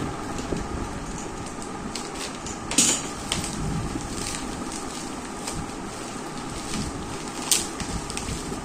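Plastic bubble-wrap packaging being handled and unwrapped, with a few short crinkles and crackles, the sharpest about three seconds in and near the end, over a steady hiss.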